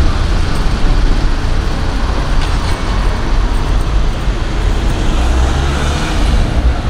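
Road traffic noise with the steady low rumble of a motor vehicle running close by, cutting off abruptly near the end.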